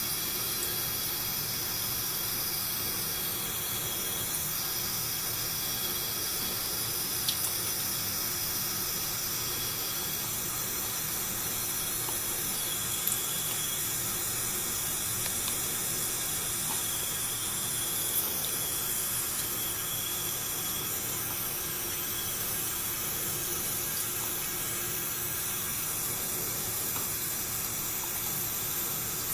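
Sink faucet left running in a steady stream of water, with a few brief clicks.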